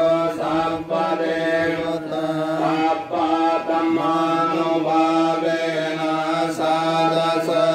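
Buddhist monks chanting Pali scripture in a steady, drawn-out recitation: long held notes on a near-monotone, moving on about once a second over a steady low pitch.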